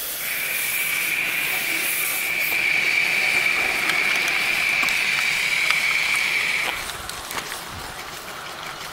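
A 3½-inch gauge live steam model locomotive, an NER Raven Pacific, lets off steam with a steady high-pitched, whistle-like tone over a hiss. It stops suddenly about seven seconds in, leaving a few light clicks.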